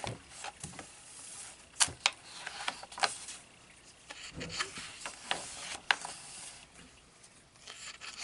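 Paper pages of a coloring book being turned and smoothed flat by hand: irregular paper rustling and rubbing, with a few sharp clicks about two, three and six seconds in.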